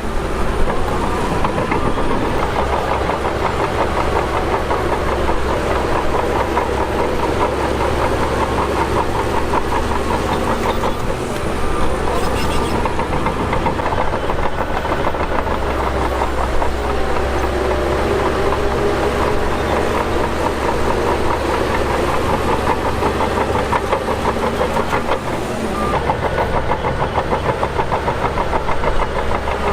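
SHANTUI DH17 bulldozer's diesel engine working under load while pushing dirt, its pitch rising and falling as the load changes.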